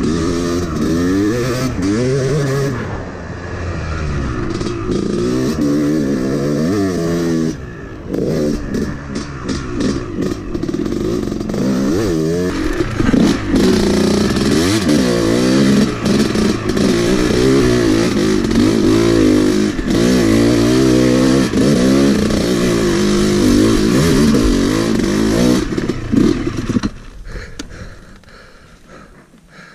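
Yamaha YZ250 two-stroke single-cylinder dirt bike engine, freshly rebuilt, revving up and down over and over as it is ridden along a trail. It cuts out about three seconds before the end.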